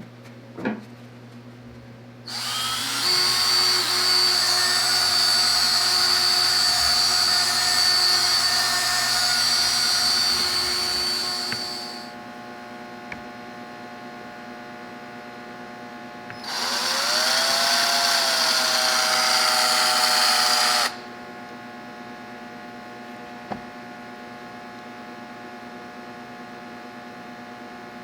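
Power drill with a mixing paddle stirring two-part epoxy resin, running in two long spells of about ten and four seconds with a steady high whine. A steady low hum continues between the spells.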